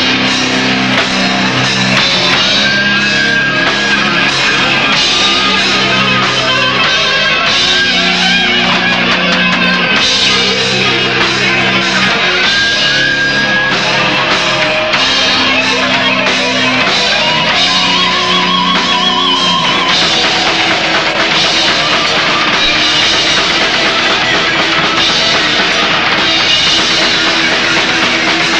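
A death metal band playing at full volume: heavily distorted electric guitars grinding out riffs over bass and drums.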